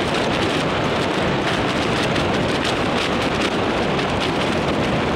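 Wind buffeting the microphone of a camera held at arm's length by a tandem skydiver descending under an open parachute: a steady, loud rush of noise.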